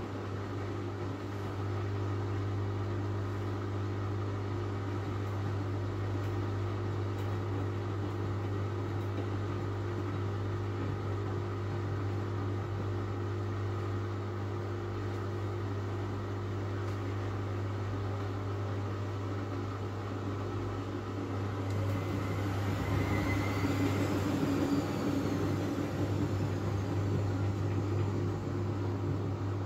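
Miele W433S washing machine running with a steady low hum of its drain pump and drive. About 22 s in, the motor's whine rises and then falls away again as the first interval of the second interim spin ramps toward 500 rpm and is held back by sudslock, too much foam in the drum.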